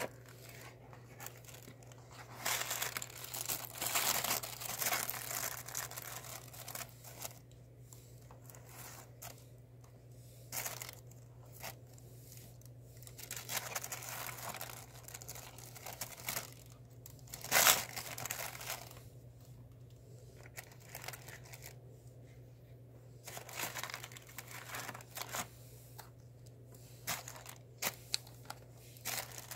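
Tissue paper and plastic packaging rustling and crinkling as hands unpack a cardboard box, in irregular bursts with a sharp crackle about two-thirds of the way through.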